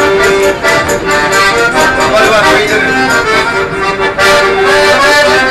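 Piano accordion being played: a melody of changing notes over long held lower notes.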